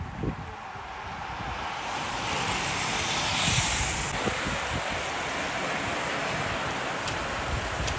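Rushing tyre hiss of a large pack of road bicycles passing close on tarmac, swelling to a peak about three and a half seconds in, with wind buffeting the microphone.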